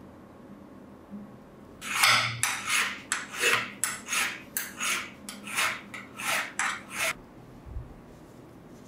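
Hand file scraping back and forth across a steel pincer half in about a dozen quick strokes, roughly two a second. The strokes start about two seconds in and stop about seven seconds in.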